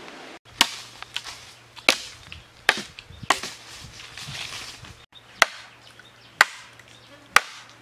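A large knife chopping into bamboo: about seven sharp blows at uneven spacing, with lighter knocks between them.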